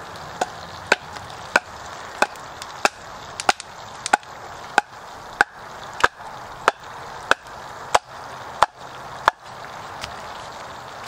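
Batoning: a wooden baton striking the spine of a Ka-Bar Becker BK9 knife, driving the blade down through an upright length of wood to split it. About fifteen sharp knocks come in an even rhythm, roughly three every two seconds, and stop shortly before the end.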